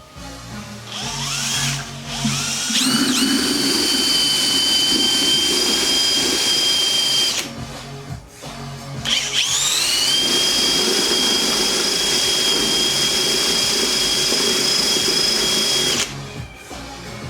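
Bosch cordless drill spinning up with a rising whine and then running steadily at high speed, twice, about six to seven seconds each with a short pause between, as it stirs wort to aerate it before fermentation. Each run stops abruptly.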